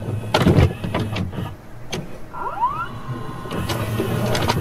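Video cassette recorder mechanism sound effect: a series of clicks and clunks, with a short rising motor whine about halfway through, over a steady low hum.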